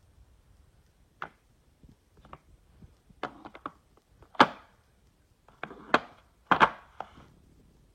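Socket extensions from a Craftsman ratchet set being handled, giving an irregular series of sharp clicks and clacks; the loudest knocks come about four and a half seconds in and again after six seconds.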